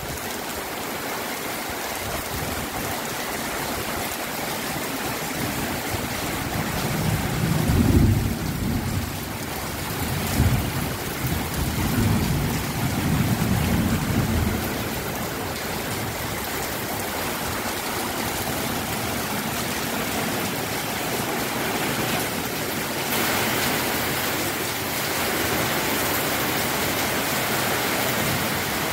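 Steady rain falling on a garden and tiled yard, an even hiss. Several low rumbles come in the middle, and the hiss grows a little stronger and brighter late on.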